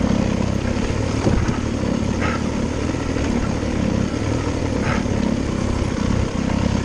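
Enduro dirt bike engine running steadily as the bike is ridden along the trail.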